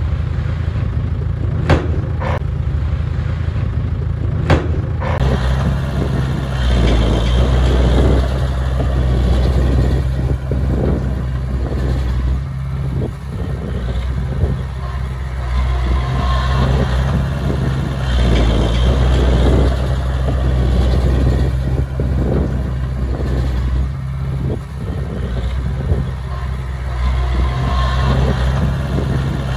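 Diesel engines of a small crawler bulldozer and a dump truck working, a steady low drone that swells and eases under load, with a few sharp knocks in the first five seconds.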